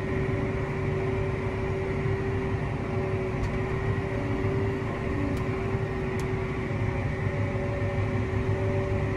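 Combine harvester running steadily while harvesting corn: an even mechanical rumble with a constant hum.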